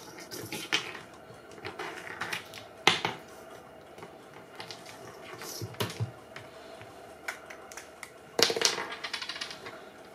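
Plastic bottle cap clattering and sliding over wooden floorboards as a cat paws and noses it: irregular clicks and taps, the loudest about three seconds in and a rapid cluster of them near the end.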